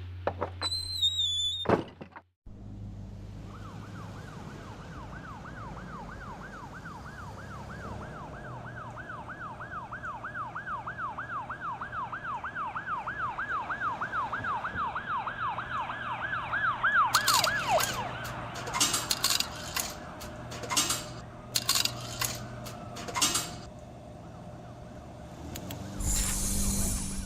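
A siren wailing in a fast warble, rising and falling about three times a second and growing louder over several seconds before it stops. A string of sharp knocks and clicks follows, and there is a short burst of noise near the end.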